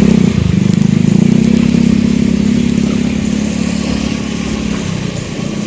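A small engine running steadily, with a fast even pulse, growing slowly quieter.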